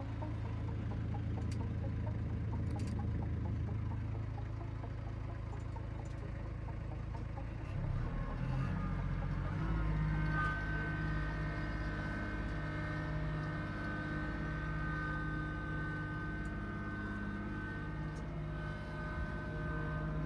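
Kubota LX2610 compact tractor's three-cylinder diesel engine running steadily. About eight seconds in its note changes and rises, settling by about ten seconds with a thin high whine over it.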